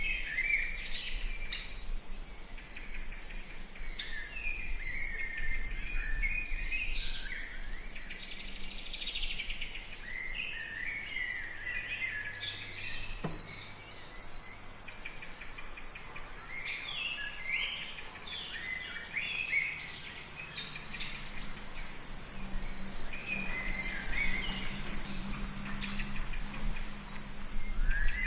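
Rainforest ambience: an insect's high, even pulsing call repeats about one and a half times a second throughout, while many birds call, chirp and trill over it.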